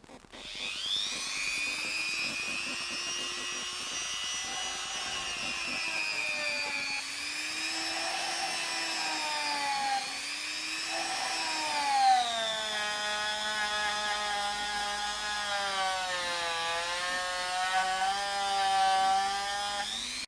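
Ryobi rotary tool (a Dremel-type tool) fitted with a Scotch-Brite abrasive pad. It spins up at the start, then runs with a high whine whose pitch repeatedly sags and recovers as the pad is pressed against the frame's headstock to scrub off powder-coat overspray.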